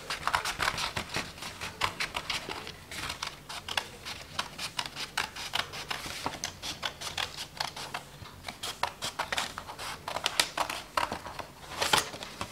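Scissors cutting through folded white chart paper along a drawn outline: a steady run of short snips, with one louder snip near the end.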